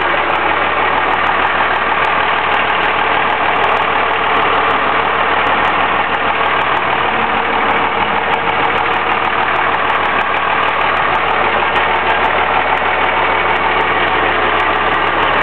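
1997 Dodge Ram 3500's 5.9-litre 12-valve Cummins turbo-diesel inline-six idling steadily.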